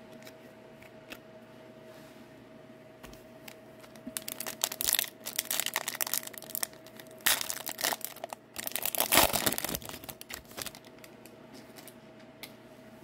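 A foil hockey-card pack wrapper being torn open and crinkled. The crackling rustles start about four seconds in, come in a rapid flurry for several seconds and are loudest near the end before dying away.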